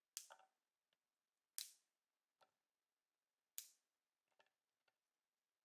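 Green asparagus stalks snapped by hand, four crisp snaps about every one and a half to two seconds, with fainter clicks between them.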